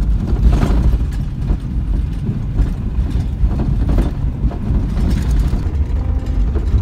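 Subaru driving on a gravel road, heard from inside the cabin: a loud, steady low road and engine rumble with scattered knocks and rattles from the gravel.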